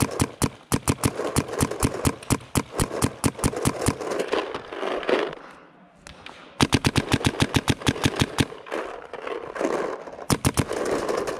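Paintball markers firing rapid strings of shots, several a second, with a brief lull about halfway through before another fast burst.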